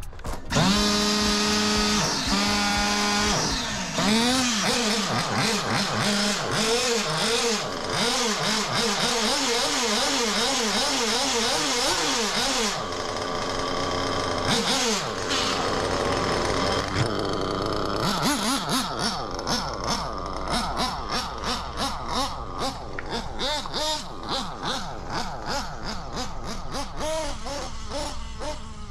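Alpha 5-port .21 nitro engine in an RC buggy starting up about half a second in, then running with its revs rising and falling over and over.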